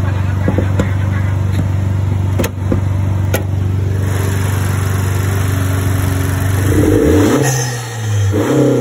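Turbocharged 1.5-litre four-cylinder engine of a 2019 Honda Accord fitted with an AEM cold air intake, running at a steady drone while the car is driven. Near the end the engine gives way to background music with a beat.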